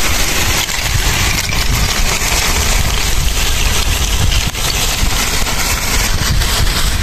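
Lumps of charcoal tipped from a plastic sack, the sack rustling as the lumps tumble and clatter onto a pile of dry sticks, over a steady low rumble.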